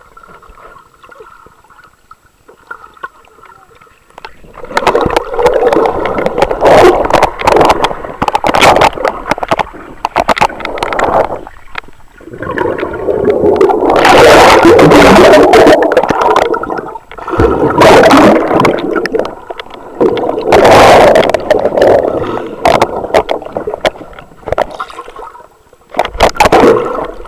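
Water sloshing and gurgling against an action camera held in the water, heard through its microphone. It is faint for the first few seconds, then comes in loud rushing surges, with the loudest in the middle and near the end.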